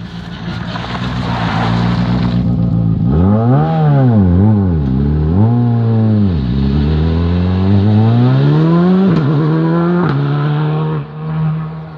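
Škoda Fabia R5 rally car's turbocharged four-cylinder engine at full throttle as the car rushes past and accelerates away. Its revs climb and drop several times, with a sharp drop about nine seconds in, and the sound falls away near the end.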